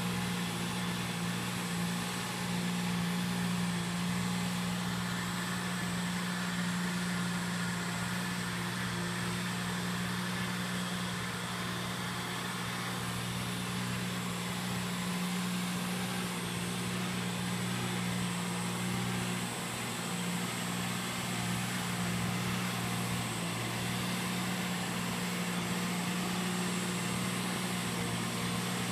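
Dingo mini tractor's engine running at a steady pitch as its rotavator turns over poultry-house floor litter, a constant low drone with a hiss over it.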